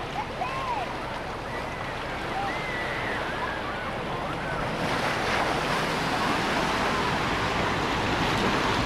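Ocean surf washing onto a sandy beach, swelling louder about five seconds in as a wave comes ashore, with faint voices of people in the first few seconds.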